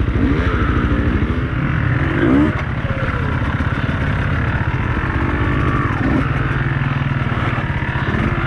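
Beta 200RR two-stroke enduro motorcycle engine running as the bike is ridden, with a short rise in revs about two seconds in.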